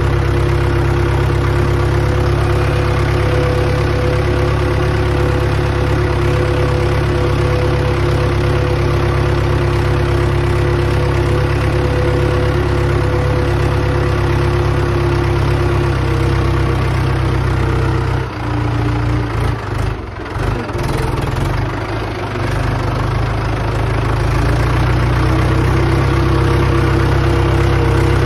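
Mahindra 415 DI XP Plus tractor's 42 hp four-cylinder diesel engine running steadily under way. About two-thirds of the way through, the engine note drops and the sound dips for several seconds, then picks back up to its earlier steady pitch near the end.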